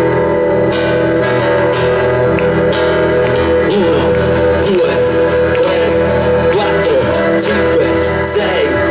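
Live folk band playing an instrumental intro: an accordion holds steady chords under guitar and other plucked strings.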